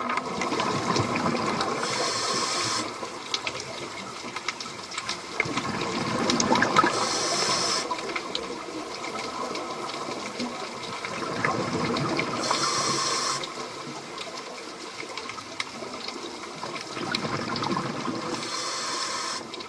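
Sea waves washing in and drawing back, a louder surge about every five or six seconds.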